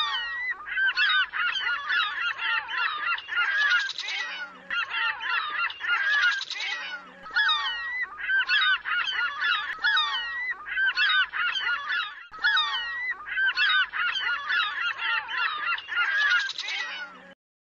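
A flock of large water birds calling over one another: dense, overlapping harsh honking calls with no pause, cutting off suddenly near the end.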